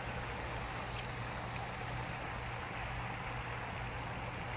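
Steady outdoor background noise: an even hiss with a constant low hum underneath, no distinct events.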